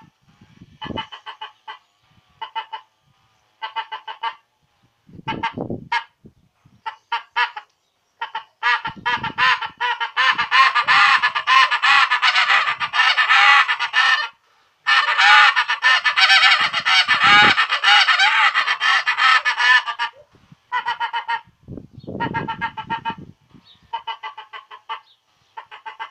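Short-reed greylag goose call with an acrylic insert and Delrin barrel, blown by mouth to imitate greylag geese. It starts with short separate honks. From about eight seconds in comes a loud run of rapid honks lasting about twelve seconds, broken once midway, and then separate honks again.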